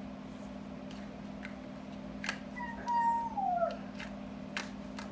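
A cat meows once, a call of about a second that holds its pitch and then falls, over a steady low hum. A few faint clicks are scattered around it.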